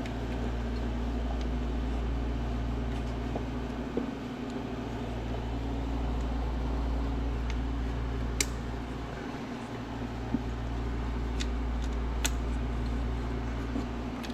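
Steady low mechanical hum, like a fan or motor running, with a few light clicks and taps over it, spaced a second or more apart.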